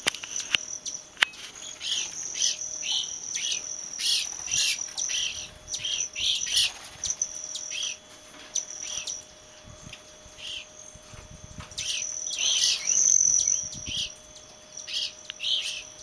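Small birds at a feeder giving many short, quick chirps over a steady high-pitched trill.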